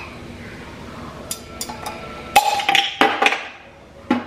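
Knife blade clicking and knocking against the lid of a jar of minced garlic as it is pried open. A few single clicks come first, then a louder run of knocks and clatter about halfway through.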